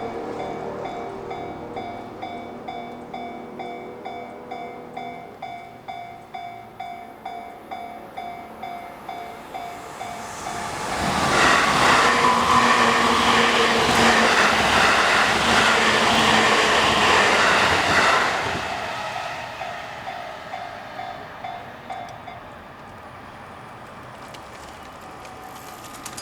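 Level crossing warning bells ringing in a steady beat of about two strokes a second. Midway a JR Tokaido Line train passes through the crossing for about seven seconds, its wheels clattering loudly over the rails. The bells stop about three-quarters of the way through.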